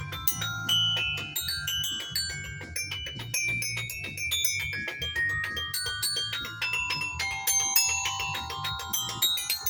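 Mallet percussion played fast and freely: a dense stream of quick struck notes at many different pitches, each ringing briefly, with bright high notes.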